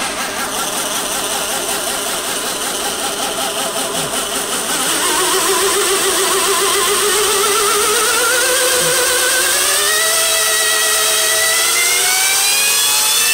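Reeder 2x72 belt grinder with its 2 hp Hallmark AC motor on a variable-frequency drive, running with the belt on and then ramping up in speed. About five seconds in it gets louder and its whine climbs steadily in pitch until near the end. The note wavers rapidly throughout, the sign of a vibration the owner finds too much for grinding and puts down to a badly balanced motor or the VFD.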